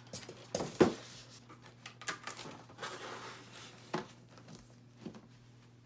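Scattered rustling, scratching and light knocks of hands handling something close to the microphone, with one sharper knock just under a second in, over a steady low hum.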